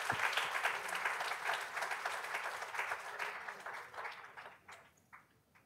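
Audience applauding. The clapping is dense at first, then dies away after about four seconds to a few last claps.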